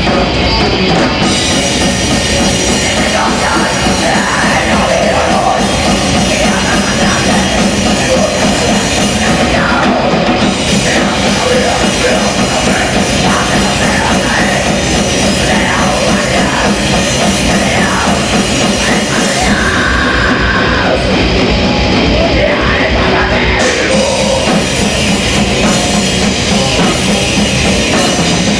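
A band playing loud heavy rock, with the drum kit keeping a steady beat throughout.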